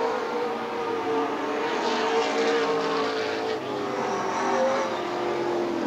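Several super late model stock car V8 engines running at racing speed on a short oval. Their overlapping engine notes drone steadily and dip slightly in pitch over the last couple of seconds.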